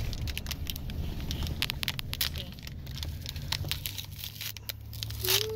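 Mooncake wrapper and its paperboard box being unwrapped by hand, crinkling and tearing with many small sharp crackles, over the low steady rumble of a car interior.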